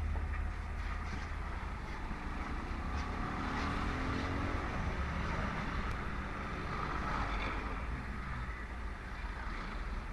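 Motorcycle riding along a highway among traffic: steady low wind rumble on the microphone over road and engine noise, with a faint rising engine note a few seconds in.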